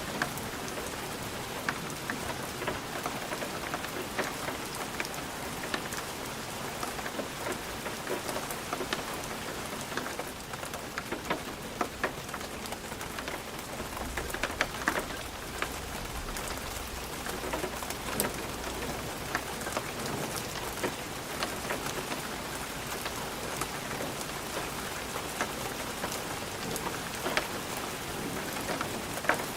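Light rain on a glass windowpane: a steady hiss of rain with many separate drops tapping on the glass. A faint low rumble comes in for a few seconds about halfway through.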